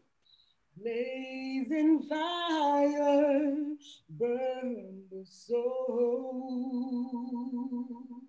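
A woman singing solo and unaccompanied in three phrases, the last a long held note with a gentle vibrato.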